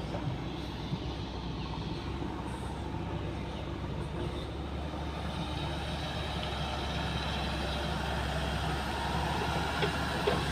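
Diesel engine of a JCB 3DX backhoe loader running steadily at work: a deep, steady drone that grows slightly louder.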